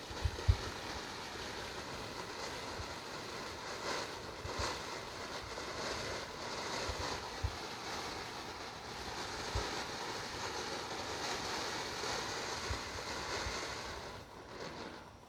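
A lit ground firework burning with a steady hissing spray of sparks, with a few scattered crackles and pops, dying away near the end as it burns out.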